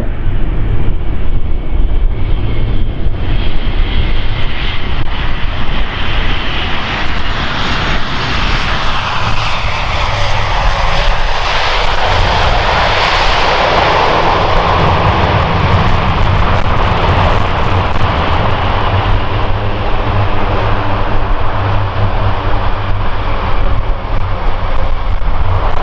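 Airbus A400M's four turboprop engines running loud as its eight-bladed propellers are put into reverse pitch to brake the aircraft on its landing roll. The noise swells and brightens in the middle, then holds steady.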